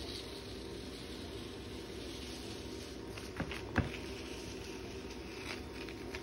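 Transfer tape being peeled slowly off a vinyl stencil on a wooden board: a soft rustle, with two sharp ticks a little over three and a half seconds in.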